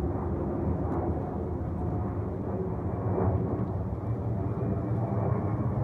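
Low, steady rumble of a jet airliner's engines.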